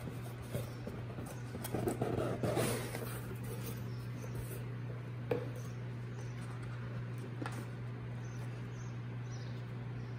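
Cardboard packaging handled by hand as a box is opened: rustling and scraping of cardboard flaps and an insert, loudest about two seconds in, with a couple of sharp taps later, over a steady low hum.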